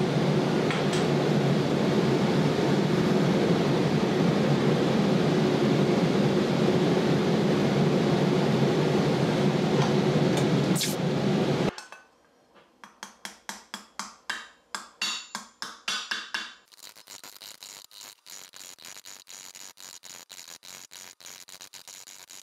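Torch flame hissing steadily while annealing a thin fine-silver cup, cutting off suddenly about halfway through. Then a hammer strikes the silver cup over a steel stake in raising: about a dozen ringing metallic strikes, followed by a fast, even run of light taps.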